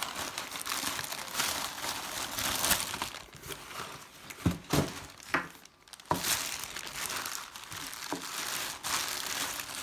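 Packing material being crinkled and pulled apart by hand while a shipping box is unpacked, with a few light knocks about halfway through.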